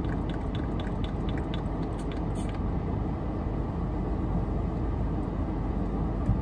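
Pump spray of a fine fragrance body mist: a run of quick light clicks, about four a second, then one sharper spray burst about two and a half seconds in. Under it, a steady low rumble inside a car.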